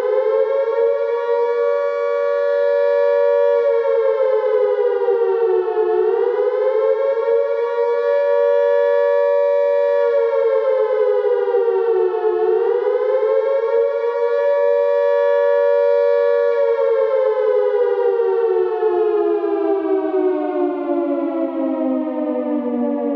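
Air raid siren wailing. The pitch dips and climbs back about every six seconds and is held high between the dips. From about two-thirds of the way through it falls slowly in a long wind-down.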